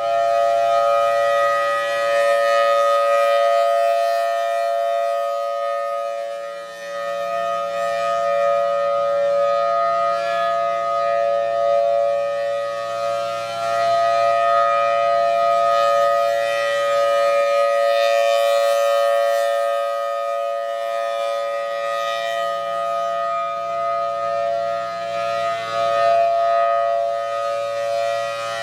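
Federal Signal Thunderbolt 1003 outdoor warning siren sounding its steady alert tone during a monthly test, two strong steady notes with overtones above. The volume swells and dips every few seconds as the rotating siren head turns.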